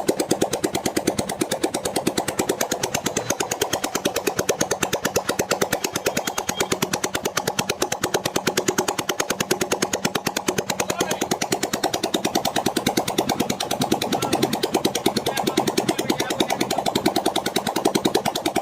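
Hero Karizma R's 223 cc single-cylinder four-stroke engine running steadily with no silencer fitted, a fast, even train of open-exhaust pops. It is the freshly rebored engine's first run on a new carburettor, left running without choke to free up.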